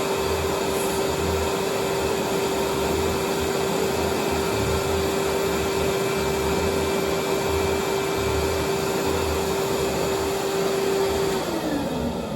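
Dog grooming blow dryer (hose-type blower) running steadily with a constant motor whine and rush of air, then switched off near the end, its pitch falling as the motor winds down.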